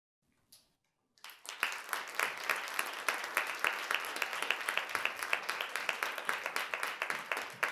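Audience applauding: dense clapping starts suddenly about a second in and holds steady.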